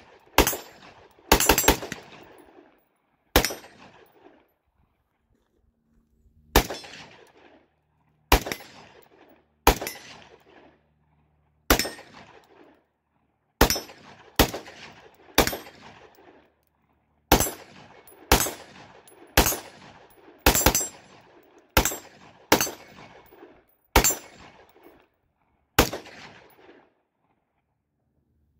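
Rifle shots from an AR-style rifle fired one at a time: about twenty shots at an uneven pace, mostly a second or two apart, with three in quick succession near the start. Each crack trails off in a short echo.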